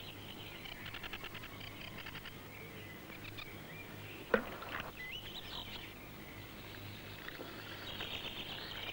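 Small birds chirping and trilling over a faint steady hum, with one sharp click about four seconds in.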